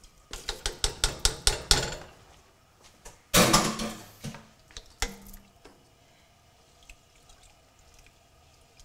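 A strainer tapped quickly against the rim of a stainless steel saucepan, about ten sharp metallic taps in a second and a half, knocking the last rinsed lentils into the broth. A little over three seconds in comes a louder clattering rush lasting about a second, then a few lighter knocks.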